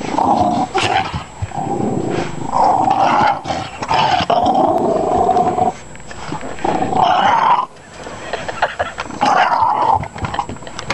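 Small dog growling over a bone, in long rumbling stretches with a few short breaks: he is guarding the bone and does not want to give it up.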